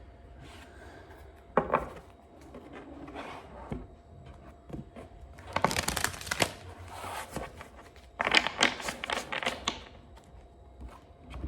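A deck of reading cards being shuffled by hand: a single sharp flick about a second and a half in, then two bursts of rapid card flicking, one around the middle and a longer one near the end.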